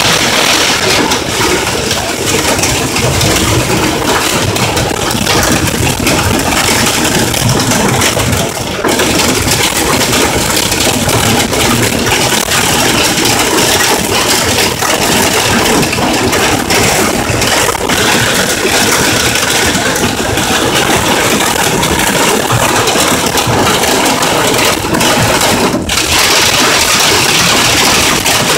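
Hail and heavy rain hitting the car's roof and windshield, heard from inside the cabin as a loud, unbroken clatter of many small impacts.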